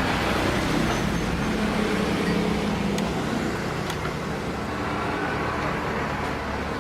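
A steady low hum with a wash of noise, and a few light clicks about three and four seconds in.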